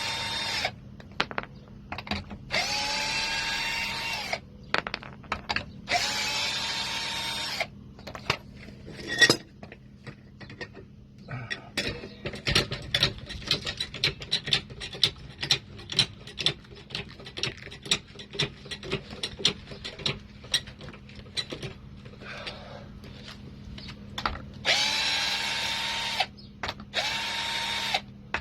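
A power tool run in short bursts of about a second and a half, each spinning up and then holding a steady pitch, several times. In the middle comes a long stretch of fast rattling clicks.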